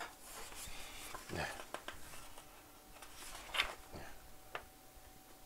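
Paper instruction booklet being opened and unfolded by hand: rustling paper with a few sharper crackles, the loudest about three and a half seconds in.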